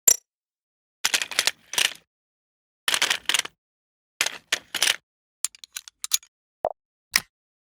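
A string of short mechanical clicking and clattering effects, each burst a rapid cluster of clicks cut off by dead silence, with one short thud near the end.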